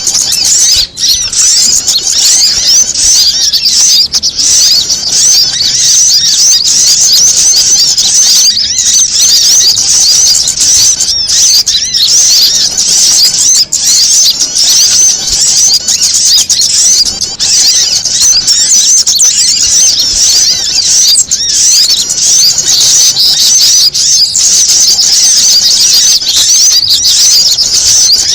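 Dense, unbroken chatter of many small songbirds calling at once: high, rapid twittering and squeaky alarm-like calls. It is a mixed bird-lure recording of prinias and agitated, panicking sunbirds with other small birds, made to call wild birds down.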